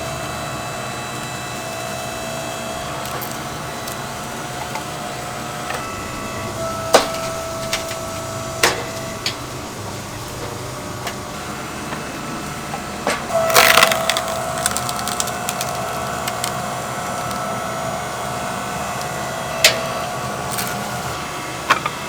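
Oak firewood burning in a chicken-roasting fire, crackling with scattered sharp pops over a steady hiss, with a busier run of crackling a little past halfway.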